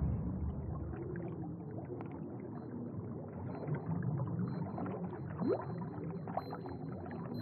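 Muffled underwater ambience sound effect: a low, churning rumble with scattered small bubbling ticks and one short rising bubble sound about five and a half seconds in, after a crash dies away at the start.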